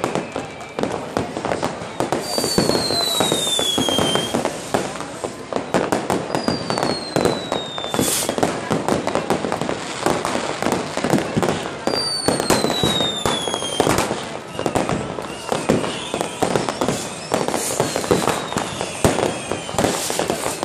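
New Year's Eve fireworks: dense crackling and popping of firecrackers and rocket bursts, with a loud bang about eight seconds in. Several long high whistles fall in pitch, from whistling fireworks.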